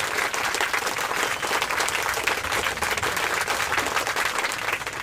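A group of people clapping their hands, steady and continuous.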